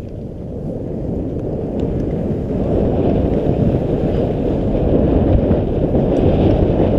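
Wind buffeting a GoPro action camera's microphone as a skier runs down a groomed slope, a low rushing noise that grows louder over the first few seconds as speed builds, then holds steady.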